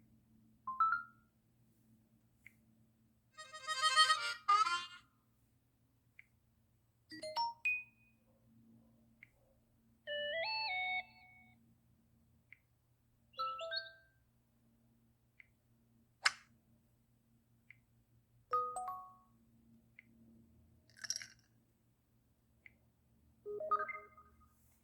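A cell phone's notification tones played one after another: about nine short, different electronic chimes and jingles of a few notes each, with pauses between them.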